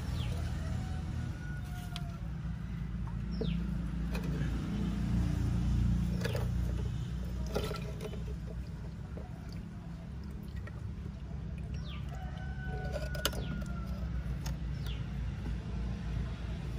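A rooster crowing faintly, twice, once a second or two in and again near the end, over a steady low rumble. A few sharp knocks come in between, as a small glass fish tank is handled and set down on a concrete ledge.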